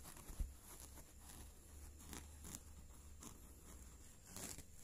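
Faint rustling and scraping of kittens moving about on bedding, with one soft bump about half a second in.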